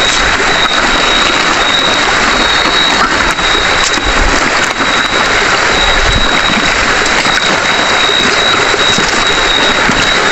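Steady rush of stream water, with a continuous high-pitched insect trill over it.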